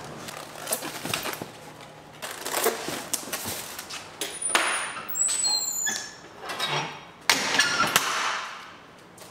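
Work clatter in a food factory: a string of irregular knocks, taps and scrapes of items being handled, with a few brief high squeaks around the middle.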